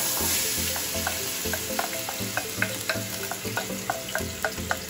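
Chopped onions, sweet peppers and tomato sizzling as they drop into hot olive oil in a stainless steel pot. The hiss is loudest at first and then settles, with a wooden spoon repeatedly knocking and scraping against the bowl as it is emptied.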